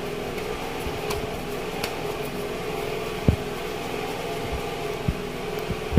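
Steady mechanical hum, with a few soft low thumps about three and five seconds in.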